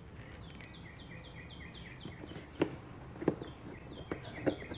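Light plastic clicks, four of them in the second half, as a LED door courtesy light is plugged into its wiring connector and pushed into the door panel. Behind it, a bird chirps over and over in short falling notes.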